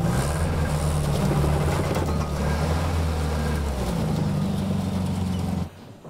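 Engine of a vintage sedan running, its pitch rising just after the start, shifting again around two seconds in and dropping back about four seconds in, then stopping abruptly shortly before the end.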